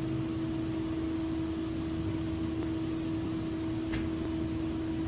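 Steady mechanical hum at one constant pitch over a hiss of moving air, from the commercial refrigerator's fan motor running; a faint click about four seconds in.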